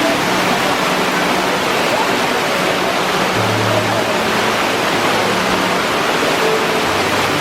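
Waterfall rushing steadily, a loud, even wash of falling water, with faint low held tones underneath.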